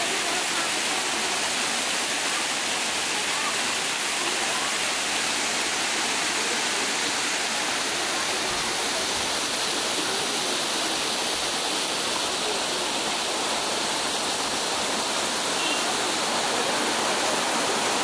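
Waterfall cascading down a terraced rock face into a stream, a steady, even rush of water.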